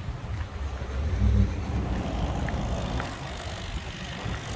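Road traffic: passing cars make a steady low rumble that swells about a second in.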